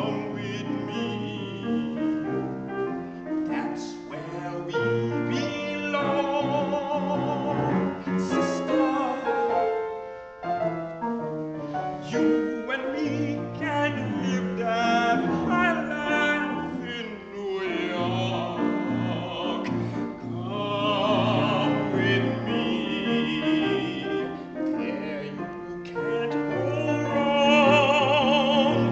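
Operatic tenor singing with piano accompaniment, his sustained notes carrying a wide vibrato.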